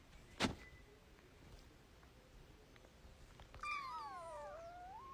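A sharp click about half a second in. Later, a domestic cat gives one long, drawn-out meow that falls in pitch, then rises and holds.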